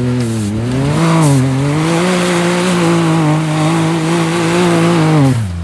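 Can-Am Maverick X3 side-by-side's turbocharged three-cylinder engine running hard with its tyres churning through mud. The pitch climbs about a second in, holds high, and drops sharply at the very end as the driver lets off.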